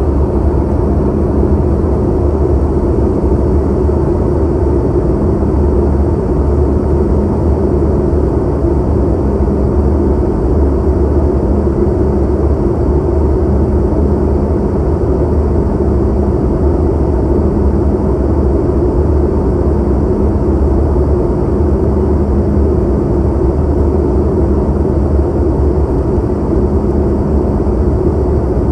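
Steady cabin noise of an airplane in flight: the constant rush of engines and airflow heard from inside the cabin, deep and unbroken, with a faint steady hum underneath.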